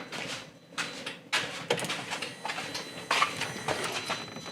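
Hands working at an ATV's plastic fuse and relay panel and its wiring: several sharp clicks and rustling scrapes.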